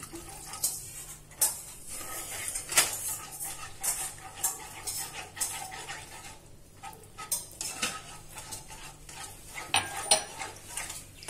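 A spoon stirring a thick gravy in a kadai, scraping and clinking irregularly against the pan.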